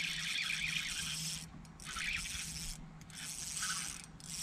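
Spinning reel being cranked to bring in a hooked fish, the rod under load: a gritty whirr of the reel's gears, broken by three brief pauses.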